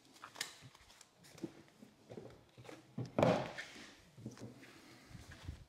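Faint room sounds: scattered light clicks and handling noises, with one louder brief noise about three seconds in.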